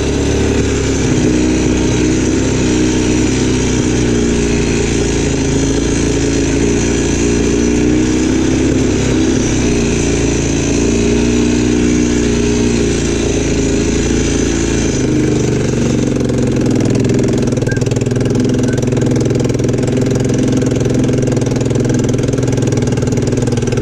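ATV engine running while the quad is ridden over grass and a dirt track, its pitch rising and falling gently with the throttle. About fifteen seconds in, the engine note drops and settles lower.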